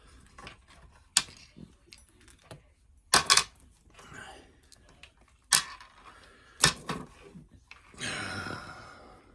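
Sharp metal clicks and knocks of small padlock parts being handled and set down on a hard surface as the lock is taken apart, about five separate knocks, two of them close together, then a scraping noise of about a second near the end that fades out.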